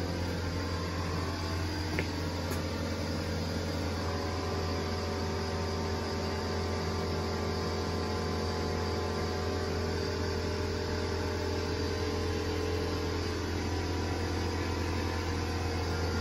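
Steady low hum, unchanging throughout, with a faint click about two seconds in.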